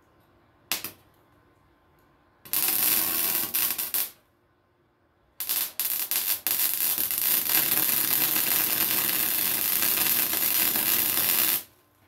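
Electric welder arcing on the ATV's cracked exhaust pipe in bursts of crackling hiss: a brief tack about a second in, a bead of about a second and a half, then a longer bead of about six seconds that stops sharply near the end.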